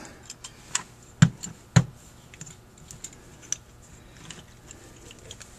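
Small metal parts clicking and tapping as a fast idle cam is fitted onto a Rochester 4GC carburetor's cast-iron throttle body. Two louder knocks come a little over a second in, about half a second apart, among scattered lighter ticks.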